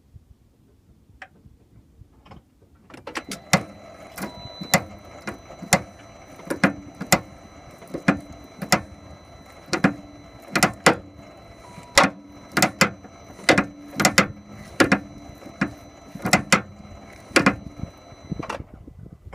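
Range Rover L322 steering clicking as the wheel is turned: sharp, uneven clicks or knocks, about one or two a second, starting about three seconds in and stopping shortly before the end. The owner traces the click to the steering rack, the track rod end ball joints having checked out fine.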